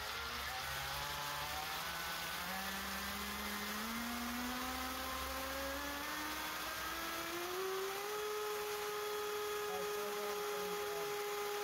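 A 3660 1400KV brushless motor on 6S driving the 3D-printed Super Sprint RC jet-boat pump on a thrust-test stand. The whine of motor and impeller climbs steadily in pitch as the throttle is opened, then holds level at full throttle for about the last three seconds, over the hiss of the water jet spraying out. At its peak the pump is pushing about 5 kg of thrust at about 70 A.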